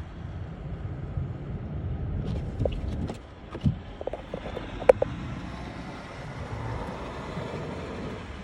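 Car driving on a snowy road: a steady low rumble of engine and tyres, with a few short knocks or clicks through the middle.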